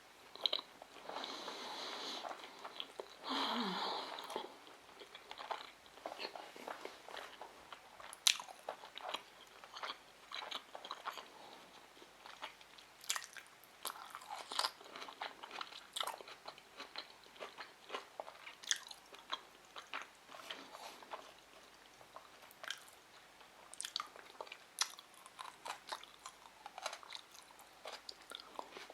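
Close-miked chewing of sushi rolls: many short wet mouth clicks and soft crunches, with a louder noisy stretch in the first few seconds.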